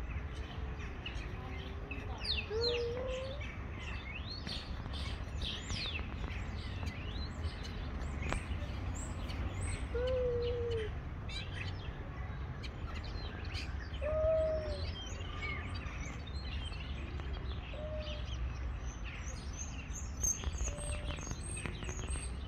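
Two tomcats in a standoff, trading low, drawn-out yowls: about five separate moans that rise and fall in pitch, the first and longest near the start. Small birds chirp throughout over a steady low background rumble.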